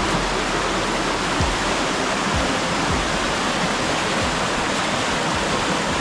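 Shallow stream water rushing steadily over limestone cascades, with a few faint low knocks.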